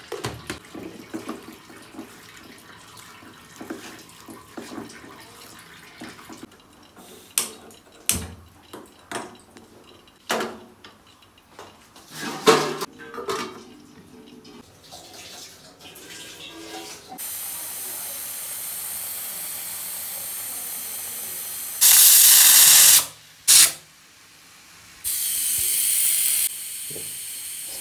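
Kitchen handling sounds: scattered clinks and knocks of steel cookware and a pan lid, then a steady hiss with several short, loud bursts of rushing noise, the loudest about two-thirds of the way in.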